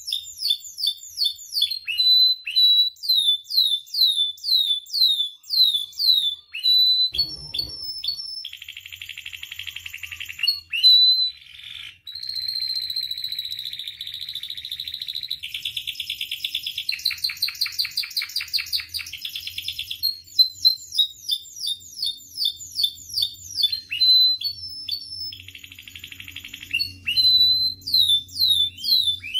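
Domestic canary singing a long, varied song: runs of quick, high downward-sweeping chirps alternate with buzzy rolling trills, several of them held for a few seconds in the middle of the song.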